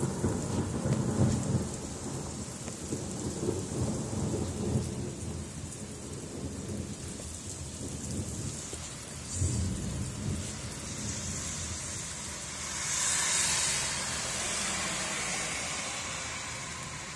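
Thunder rumbling and fading away over steady rain, with a second shorter rumble about halfway through. Near the end, a louder hiss swells for a few seconds.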